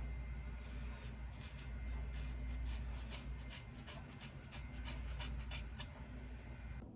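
Scissors snipping through hair: a run of short, crisp snips, about three or four a second, from about half a second in until shortly before the end.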